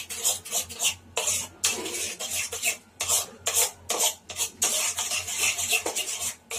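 A spoon scraping and stirring thick rabri (thickened milk) around a kadhai, in quick, irregular, repeated strokes.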